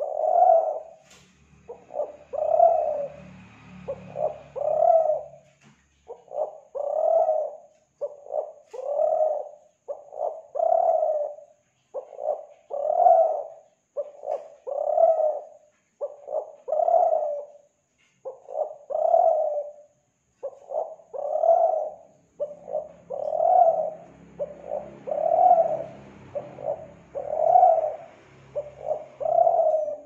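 Spotted dove cooing over and over: a few short notes run into a longer, louder coo, the phrase repeating about every two seconds.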